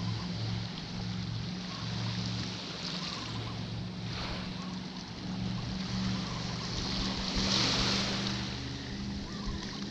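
Small waves washing up and drawing back on a sandy shore, swelling twice, about four seconds in and again near eight seconds, with wind on the microphone. A steady low hum runs underneath.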